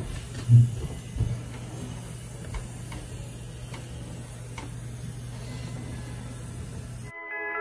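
Quiet room with a steady low hum, broken by two low thumps about half a second and a second in and a few faint ticks. Music with bell-like tones cuts in near the end.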